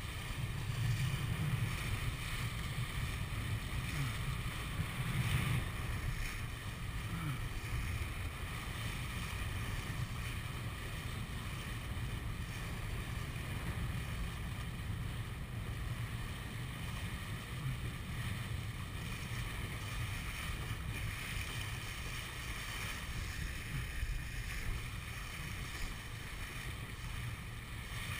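Wind buffeting the microphone over the rush and splash of water along the hull of a 470 sailing dinghy under way. The sound is steady, with brief stronger gusts about a second in and again around five seconds.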